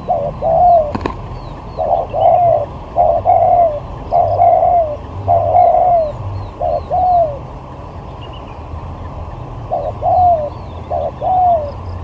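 Spotted dove cooing: a run of low coos, each rising then falling, in quick groups, then a pause of about two seconds and a few more near the end. A single sharp click about a second in, and faint high chirps of small birds behind.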